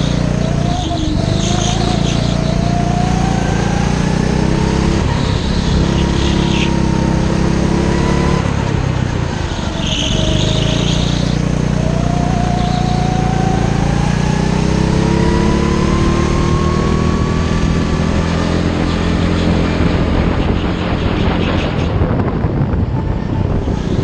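Rental go-kart engine heard onboard, its revs climbing steadily along the straights and falling away for the corners, twice. A few brief high squeals sound in the corners.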